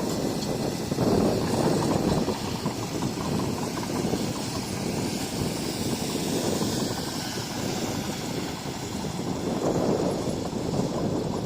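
Bulldozer's diesel engine running as it works, a steady machine noise that swells and eases a little in loudness.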